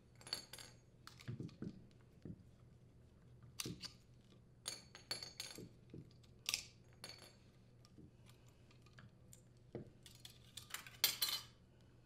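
Faint scattered metal clinks and clicks as steel support arms and a band mounting bracket are taken off a furnace blower motor and set down, with the loudest cluster near the end.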